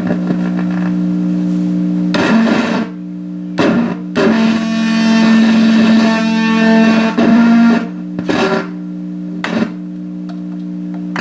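Kalamazoo Reverb 12 tube guitar amp with a loud steady hum under everything, and guitar notes and chords sounding through it at intervals, one held for several seconds in the middle. The owner puts the noise down to multiple bad grounds on the chassis.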